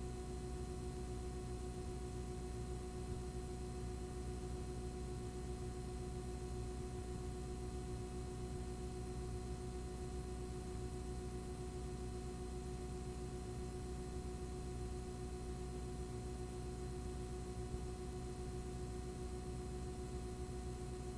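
Steady electrical hum and hiss with no other sound: a few fixed tones over a low drone and an even hiss, unchanging throughout, as from a blank stretch of recorded videotape.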